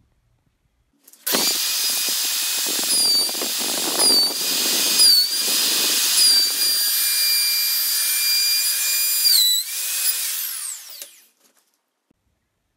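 Bosch POF 1200 AE plunge router starting about a second in and running with a high whine that dips in pitch several times as the bit cuts along the tabletop edge. Near the end it is switched off and spins down to a stop.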